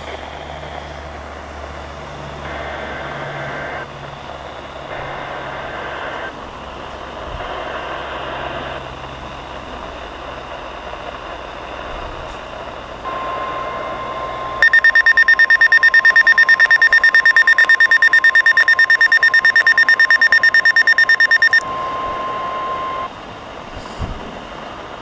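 NOAA Weather Radio Required Weekly Test coming through a weather radio's speaker over reception static. Three short bursts of SAME header data tones are followed by the steady 1050 Hz alert tone, lasting about ten seconds. For about seven seconds in the middle of the tone, a receiver's loud, rapidly pulsing alarm beep sounds over it.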